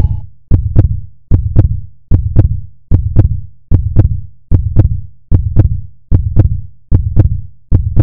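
Heartbeat sound effect: loud, low double thumps (lub-dub) repeating steadily at about 75 beats a minute.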